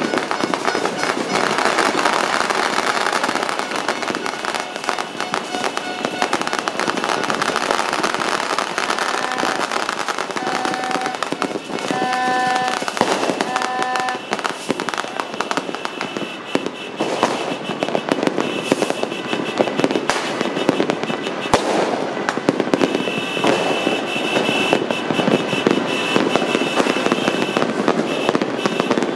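Many fireworks and firecrackers going off at once: a dense, continuous crackle with countless sharp bangs.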